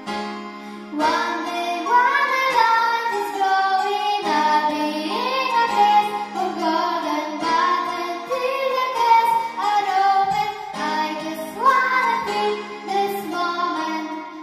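A young girl singing a pop song into a microphone while accompanying herself with chords on a Yamaha electronic keyboard. Her voice comes in about a second in and carries on in phrases with brief breaths between them.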